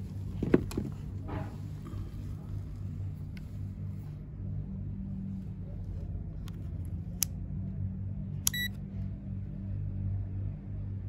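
Handling of a digital multimeter and its test probes: a few sharp plastic clicks, the loudest about half a second in, and a short high beep from the meter about eight and a half seconds in, over a steady low hum.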